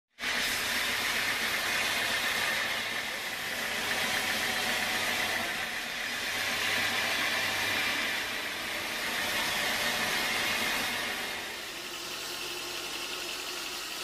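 Band sawmill blade cutting through a teak log: a steady, loud hissing rasp over the running saw, easing somewhat after about eleven seconds.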